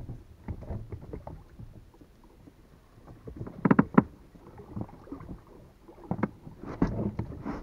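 Irregular knocks, bumps and rustling in a small boat, with a loud cluster of sharp knocks about halfway through and more near the end.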